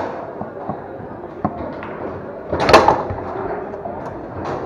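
Tornado foosball table in play: sharp clacks of the ball and rod men, with one loud bang a little past halfway through.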